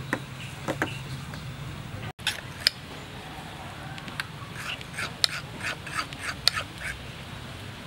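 A spoon stirring thick batter in a ceramic bowl: a run of light clinks and wet scrapes, about two or three a second, strongest in the second half.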